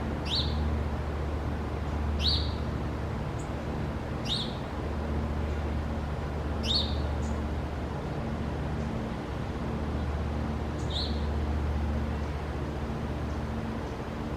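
A small bird giving short, sharp chirps: five in all, about two seconds apart, with a longer gap before the last. A steady low hum runs underneath.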